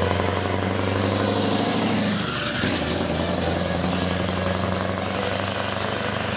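Heavy truck's diesel engine driving past. The engine note drops in pitch as the truck passes, about two and a half seconds in, then runs on lower and a little quieter as it pulls away.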